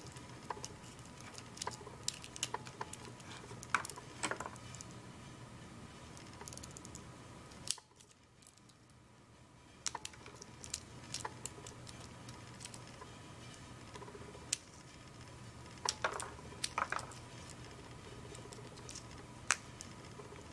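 Small screwdriver prying and scraping at the epoxy potting inside a small plastic camera housing: faint scattered clicks and scrapes, with a short hush about eight seconds in.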